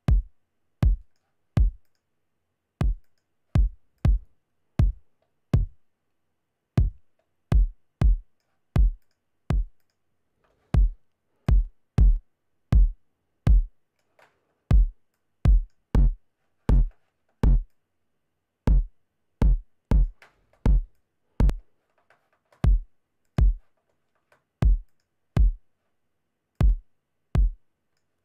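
A soloed kick drum track playing its pattern: separate hits, each a short click with a deep low thud, in groups of four or five with brief pauses between. The kick runs through Waves Renaissance Bass, which adds sub-bass low end.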